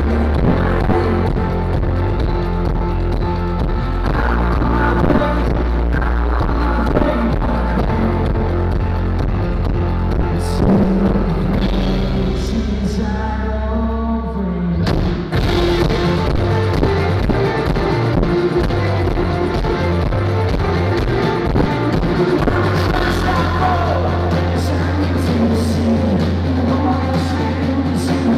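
Live indie rock band playing through a PA: electric guitars, bass, drums and vocals. About halfway through the bass and drums drop away for a few seconds, then the full band comes back in.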